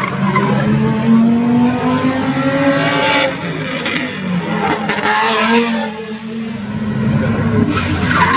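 Cars driven hard through a tight cone course, one after another. Their engines rev and drop in pitch again and again as they accelerate and brake between the cones, and one car passes loudest between about three and five seconds in.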